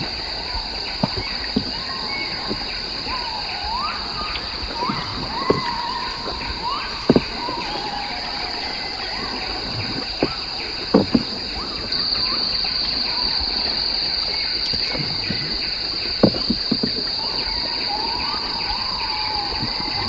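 Rainforest ambience: a steady high-pitched insect drone that grows louder about twelve seconds in, with birds giving short rising and falling whistled calls. Scattered sharp clicks stand out above it.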